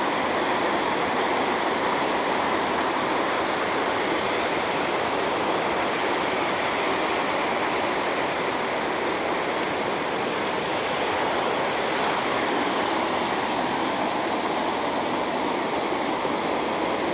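Mountain stream rushing over rocks and small cascades into a pool, running high with winter water: a steady, even rush of water that does not change.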